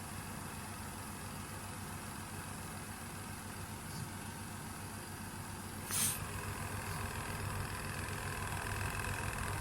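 Small electric laundry machine running, its motor giving a steady low hum. About six seconds in there is a short sharp noise, after which a higher steady whine joins the hum and it gets a little louder.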